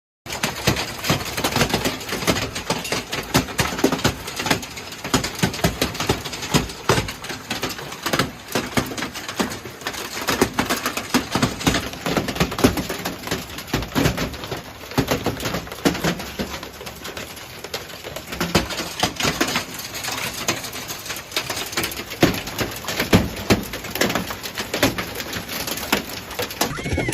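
Large hailstones pelting down and clattering on hard surfaces: a dense, unbroken run of sharp knocks and clicks, with louder strikes scattered throughout.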